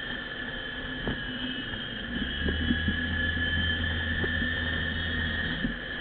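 Side-by-side UTV driving over a dirt trail, heard from inside its open cab: the engine runs with a steady high whine, and short knocks and rattles come from the chassis over bumps. The engine's low rumble grows louder from about two seconds in and drops back shortly before the end.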